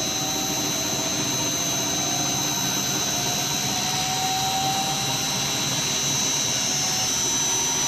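Electric motor in a chiller plant slowly revving up, sounding like a plane: a steady rushing hiss with high whines and a tone that climbs gradually in pitch.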